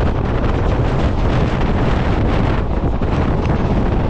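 Wind buffeting a microphone held out of a moving passenger train's window, over the steady rumble of the train running along the track.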